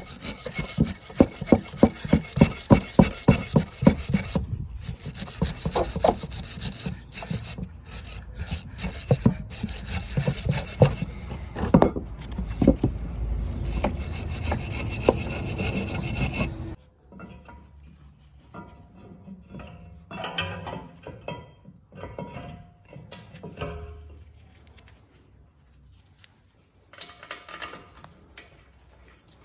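Brake caliper carrier being scrubbed clean by hand at its pad slide surfaces, in quick, regular rasping back-and-forth strokes, to clear deposits where the new brake pads will slide. The scrubbing stops abruptly a little over halfway through, and quieter scattered clinks and handling noises follow.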